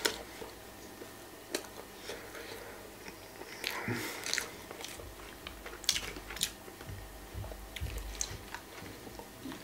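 A person chewing and biting into a grilled ham-and-cheese sandwich: scattered small crunches and mouth clicks, with a low rumble of movement in the middle.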